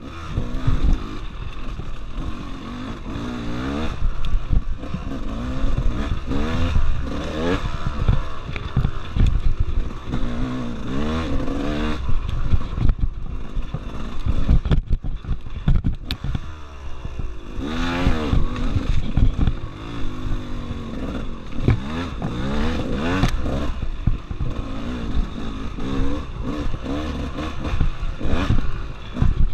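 Dirt bike engine ridden hard, revving up and falling back again and again as the throttle is opened and closed, dropping off briefly a couple of times in the middle. Knocks and clatter from the bike bouncing over rough ground.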